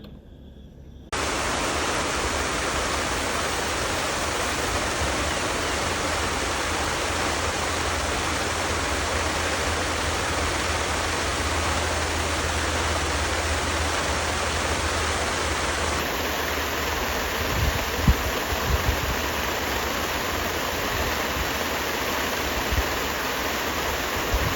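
Rain falling steadily, a dense even hiss that starts suddenly about a second in. A few low bumps come through in the second half.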